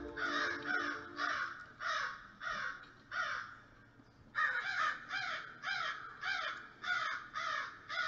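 Crows cawing in a long run of harsh caws, about two a second, with a short break halfway and a louder run after it.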